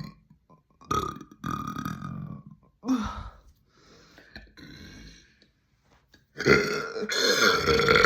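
A person letting out a string of deep burps: short ones about one, two and three seconds in, then a long, loud burp starting near the end.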